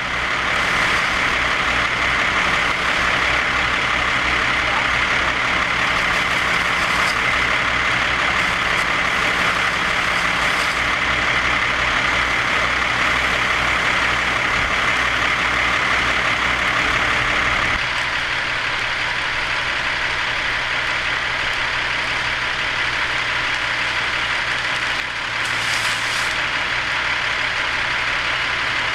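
A heavy engine idling steadily under a continuous rushing hiss of wildfire burning through brush and trees. The mix changes slightly and drops a little about eighteen seconds in.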